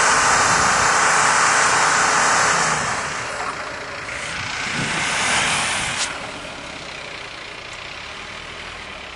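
Vehicle engine working hard under load to drag a snow-bound vehicle out on a tow strap: loud for the first two and a half seconds, easing off, surging again about five seconds in, then settling to a quieter steady running about six seconds in.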